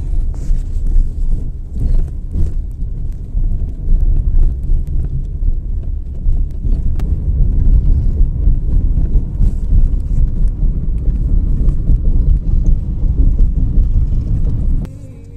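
Wind buffeting the microphone along with the road noise of a moving car: a loud, unsteady low rumble that drops off sharply near the end.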